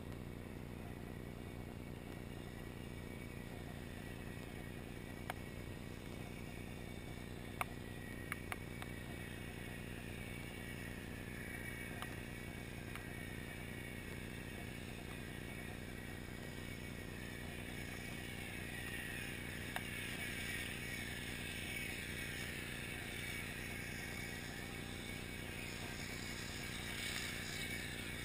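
Underwater sound on a shallow oyster reef: a steady low drone with a few sharp clicks. From about a third of the way in, the whir of a passing motorboat, heard through the water, builds and is strongest near the end.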